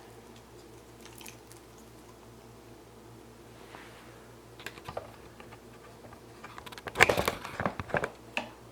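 Light clicks and rustles of a wiring harness and braided loom being handled, with a louder clattering cluster about seven seconds in that lasts about a second. A faint steady hum runs underneath.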